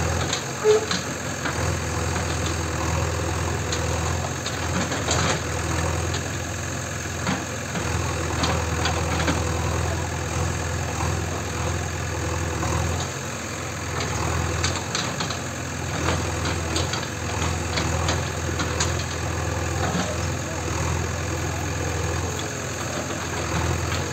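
JCB 3DX backhoe loader's diesel engine running steadily as its backhoe arm works through a heap of clay-house rubble, with scattered knocks and clatter from the bucket and falling clods. A sharp knock stands out about a second in.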